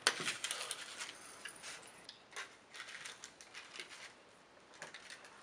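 A small metal Altoids mint tin being handled and opened: faint, scattered light clicks and ticks of the hinged lid and the tin in the hands.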